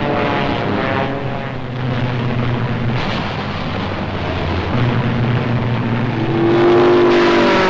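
Piston-engined propeller warplanes in flight: a steady engine drone, joined about six seconds in by a louder engine note that starts to fall in pitch near the end, like a plane diving past.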